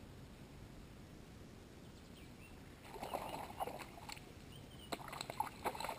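A hooked bass splashing and thrashing at the pond's surface. It comes in two bouts of irregular splashes, about three seconds in and again about five seconds in.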